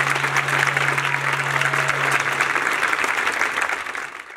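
Audience applauding, fading out near the end, with a low steady tone underneath that stops a little over two seconds in.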